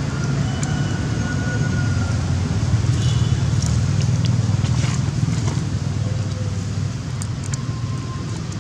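A steady low engine hum, like a motor running at idle, with a few faint short high chirps and clicks over it.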